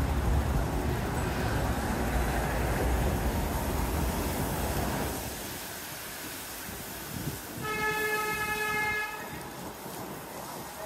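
A streetcar rumbling past, its heavy low rumble fading away after about five seconds. Near the end a horn sounds once, a steady tone of about a second and a half.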